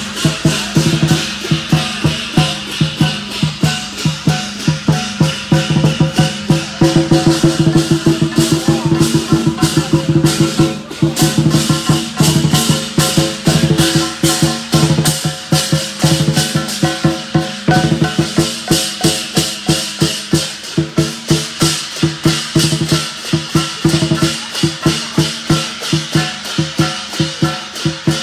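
Lion dance percussion band playing a fast, steady beat on drum and cymbals, with a brief break about eleven seconds in.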